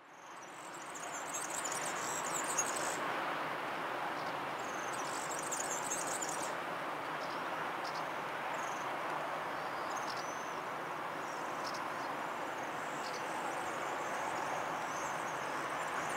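Outdoor evening ambience: a steady rush of background noise, with small birds chirping above it and two high trilling bursts in the first few seconds. The sound fades in at the start.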